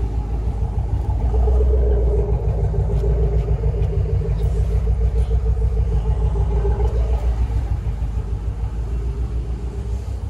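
A motor vehicle running: a steady, pulsing low engine rumble with a faint held hum above it.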